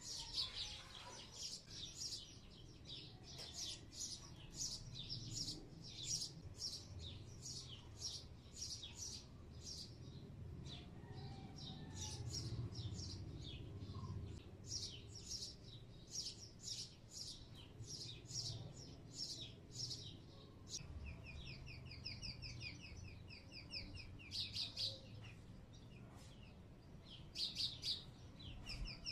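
Small bird chirping repeatedly, several short high chirps a second, breaking into a fast trill about three-quarters of the way through, over a faint low hum.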